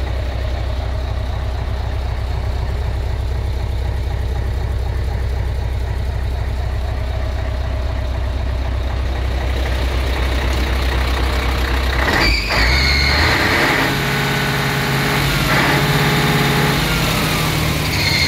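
Mercedes-Benz SK 3538 tipper truck's V8 diesel engine idling steadily, heard first from inside the cab. About twelve seconds in there is a knock, and the engine note then sounds fuller and higher, with brief high whistling tones at that moment and again near the end.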